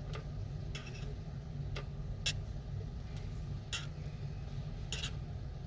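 Light clicks and clinks of small repair tools against an iPhone's parts, about six of them at irregular moments, over a steady low hum.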